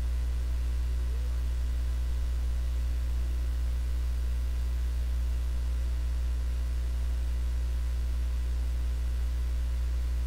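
Steady low electrical mains hum in the recording, unchanging throughout, with nothing else over it.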